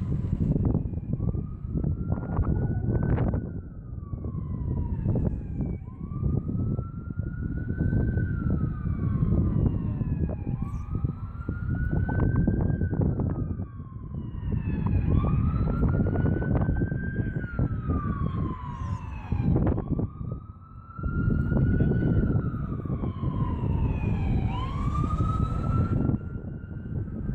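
Police car sirens wailing, each cycle rising quickly and falling slowly, every few seconds. A second siren joins and overlaps in the latter half. Underneath runs a steady low rumble.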